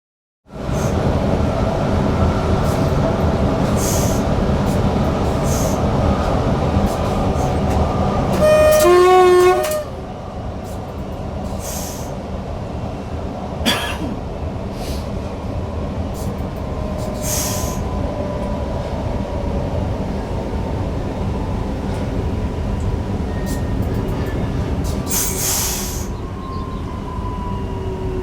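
Newag Impuls electric multiple unit running, heard from the driver's cab: steady rolling and drive noise, with a brief horn blast about nine seconds in. After that the running noise is quieter, and near the end a whine falls slowly in pitch as the train slows.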